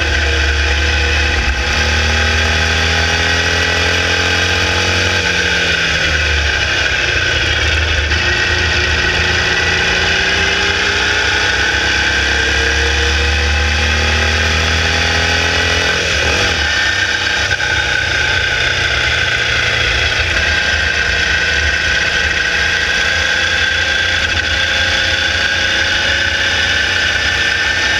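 Air-cooled 1200cc Volkswagen flat-four of a Formula Vee race car at speed, heard onboard over a steady rush of wind noise. The engine pitch falls about five seconds in and shifts again around sixteen seconds, as the driver lifts and changes gear through the corners.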